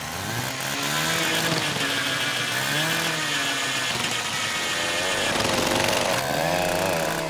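Electric power tool cutting into a house wall to open up a beehive cavity, its motor pitch dipping and rising repeatedly as it bites into the wall.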